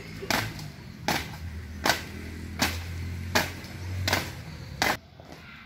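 A squad marching in step on a paved yard, feet striking together about every three-quarters of a second over a low steady hum. The steps stop about five seconds in.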